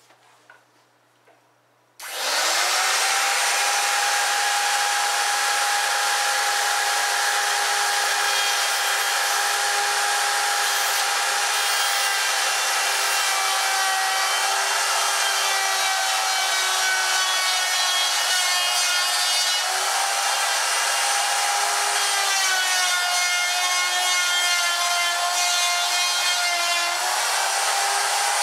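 Handheld electric router switched on about two seconds in, spinning up to speed and then cutting into pine 2x10 lumber. Its steady whine dips in pitch under load and recovers several times, most often near the end.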